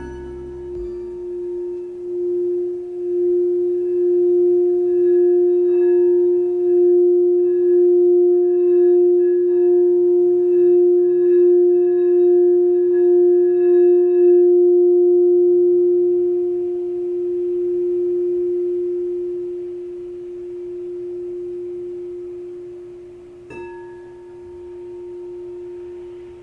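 Frosted quartz crystal singing bowl played with a mallet, holding one steady pure tone that swells in slow, even pulses. About fourteen seconds in the tone begins to die away slowly, and near the end a light strike sets it ringing again.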